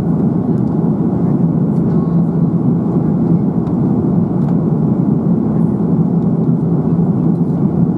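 Steady cabin noise of an Airbus A330-300 in flight, heard from a window seat: an even roar of engines and airflow with a steady low hum.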